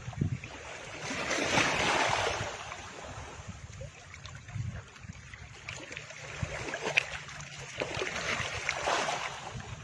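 Whooshing sound effects of an animated logo intro: a rush of noise swells up and fades about a second in and again near the end, over a low rumble with scattered crackles.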